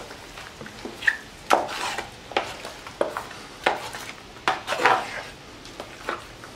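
A metal 5-in-1 tool scraping and stirring 5-minute setting-type joint compound back and forth in a metal mud pan, in repeated strokes about one a second, as the mud is worked to a creamy consistency.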